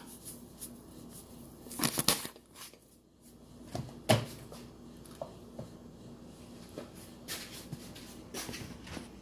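Spice containers being handled at a kitchen counter: a few short clicks and knocks of lids and jars, the loudest about two and four seconds in, with lighter taps between.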